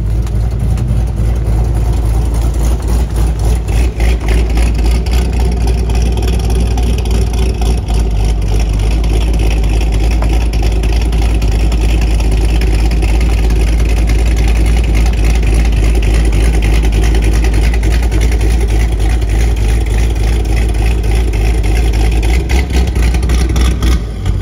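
Chevrolet Corvette Z06's V8 engine and exhaust running loud and steady, heard close to the tailpipes, with a deep low drone.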